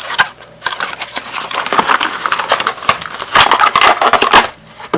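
Box contents and packaging being handled close to the microphone: a dense run of crackles, rustles and small clicks, pausing briefly about half a second in and again near the end.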